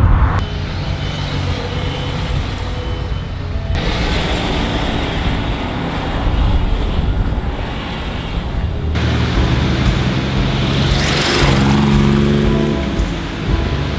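Low rumble of a pickup truck driving along a road, under background music with held notes. The sound changes abruptly a few times.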